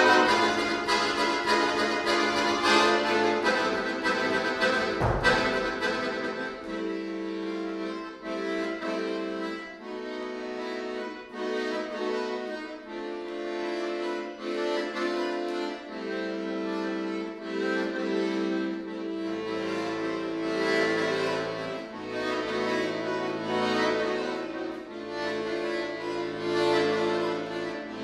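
Chromatic button accordion played solo in sustained chords: loud and full with deep bass for the first few seconds, with a strong accent about five seconds in, then a softer passage without the bass, the low bass notes coming back about two-thirds of the way through.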